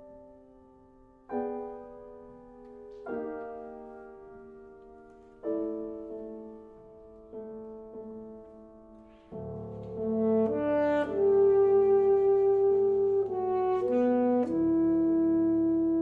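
Classical duo for wind instrument and piano: piano chords are struck one after another and left to ring out. About nine seconds in, the wind instrument enters with long held notes over the piano and the music grows louder.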